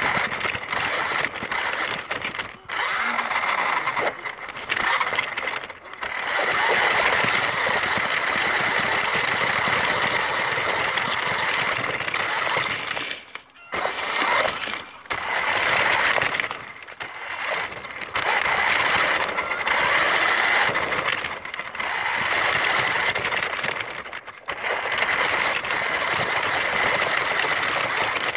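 Toy Dodge RC car's electric motor and gears whirring as it drives, in long spells broken by several short stops where the motor cuts out.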